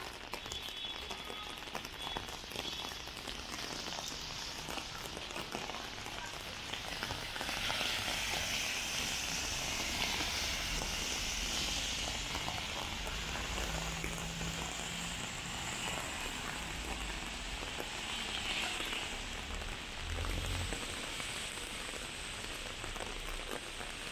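Heavy rain falling on a city street, a steady hiss that swells louder for a few seconds in the middle.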